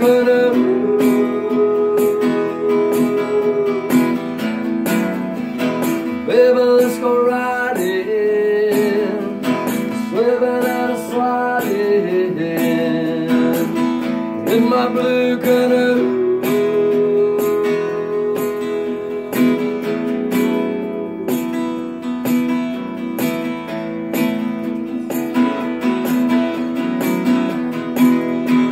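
Solo acoustic guitar playing an instrumental break, with strummed chords under a picked melody line.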